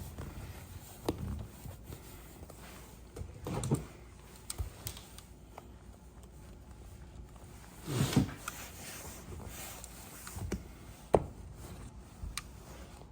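Hands working a motorcycle seat cover over the seat pan during stapling: a few bouts of rustling and handling, and several sharp clicks, the loudest one about eleven seconds in.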